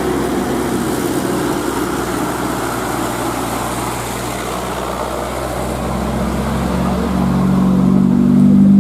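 Sand dump truck's engine running steadily, then its note rising in pitch and getting louder from about six seconds in.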